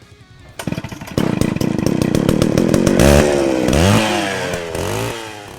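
A loud motor running with a rapid pulsing, then its pitch rising and falling several times before it dies away near the end.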